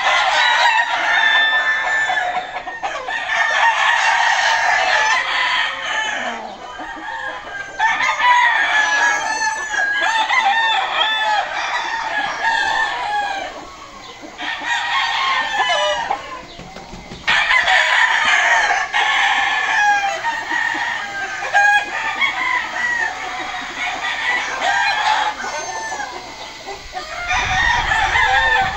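Many gamecock roosters crowing over one another with clucking, the calls overlapping almost without pause apart from a couple of short lulls.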